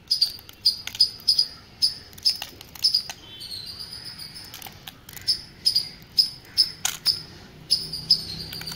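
Metal hand-held kuzhal press squeaking in short, high chirps about twice a second as its screw handle is turned to squeeze rice dough through the die, with a longer rising squeak a few seconds in and a few clicks.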